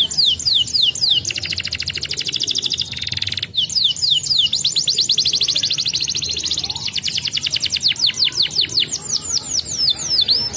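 Domestic canary singing a long, loud song of rapid runs of repeated downward-sweeping whistled notes, with very fast rolling trills between them and a brief break about three and a half seconds in.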